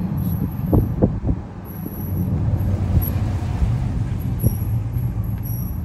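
A vehicle driving, with a steady low rumble of engine and tyres heard from inside the cab. A few light knocks come about a second in.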